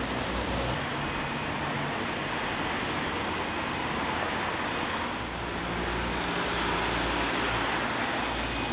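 City street traffic: a steady wash of car noise with a low rumble underneath, shifting slightly about five seconds in.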